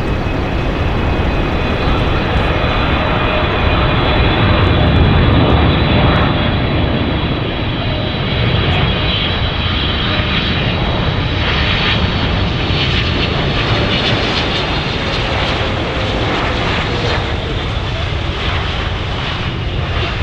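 Boeing 777-300ER's two GE90 turbofan engines at approach power as the airliner flies low past on final approach to land: a steady jet rumble and whine, loudest about five seconds in, with a tone that slowly falls in pitch as the plane passes.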